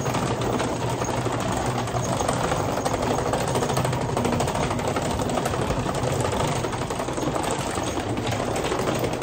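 Luggage wheels rolling over a tiled walkway: a steady, fast rattle.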